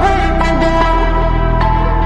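Background music: an instrumental electronic pop passage with sustained synth notes over a steady bass.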